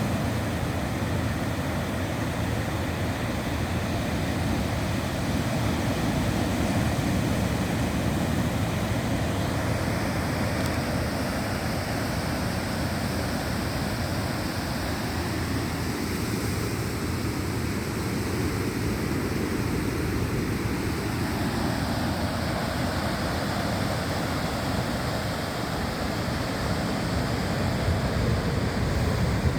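Steady roar of ocean surf, with wind.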